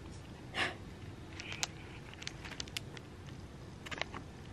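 A cat biting and batting at a crinkly tinsel-strand toy: a short rustling swish about half a second in, then scattered light clicks and crinkles.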